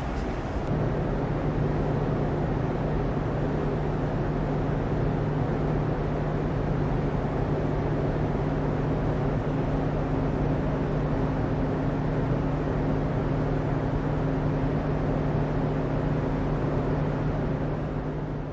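Steady engine drone aboard a ship under way, a low, even hum over a wash of wind and water noise. It begins to fade near the end.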